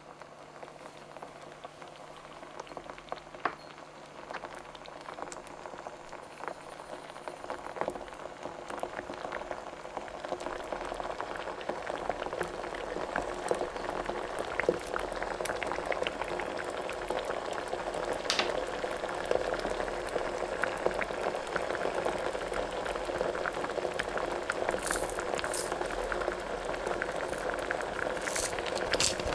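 Food bubbling and sizzling as it cooks, growing steadily louder, with small pops and crackles throughout.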